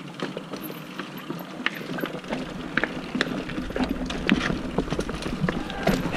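Mountain bike clattering over rough trail, with many sharp clicks and knocks as it rattles along. A low rumble comes in after about two seconds.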